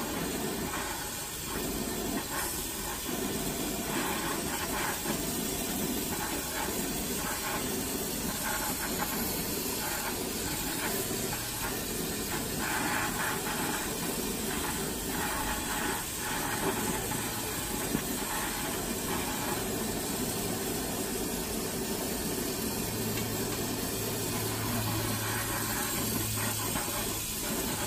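Glassblowing torch flame burning with a steady hiss as glass is worked in it. A low hum comes in during the second half.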